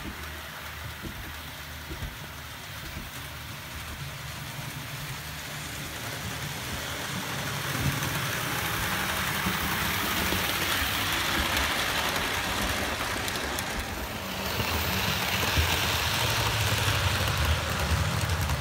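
Model railway trains running on the layout: a steady running hiss from wheels on the rails over a low motor hum. It grows louder about eight seconds in, and again about fifteen seconds in, as trains pass close.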